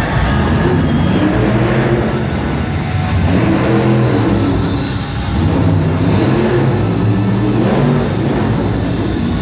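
Monster truck engines revving, their pitch rising and falling several times over a steady run.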